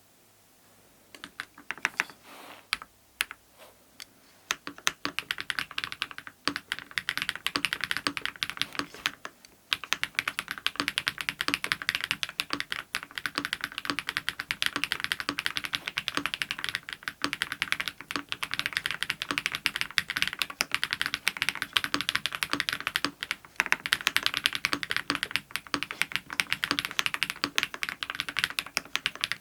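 ABKO AK99 mechanical keyboard with Krytox-lubed BSUN Raptor MX linear switches, a polycarbonate plate and PBT doubleshot keycaps, being typed on. It starts with a few separate keystrokes, builds to quicker typing, pauses briefly near ten seconds in, then runs on as steady fast typing.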